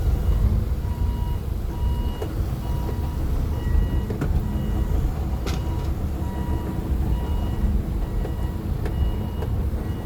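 Vehicle engine rumble heard from inside the cab, with a short electronic warning beep repeating about every half second throughout.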